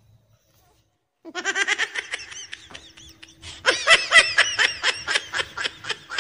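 High-pitched laughter in rapid giggling pulses. It comes in two bouts: the first starts about a second in, and the second, louder one starts about halfway through.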